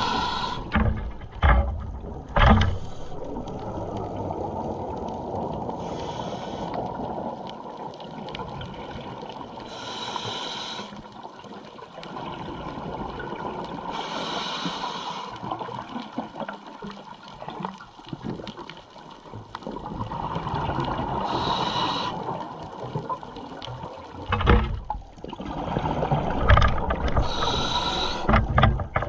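Underwater sound heard through a camera housing mounted on a speargun: a steady low rush of water, broken by a few short hissing bursts several seconds apart. There are dull knocks near the start and again near the end.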